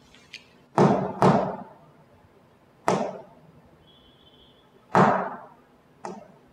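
A hand knocking and tapping on a large touchscreen display: four sharp knocks spaced one to two seconds apart, each with a short room echo, then a few lighter taps near the end.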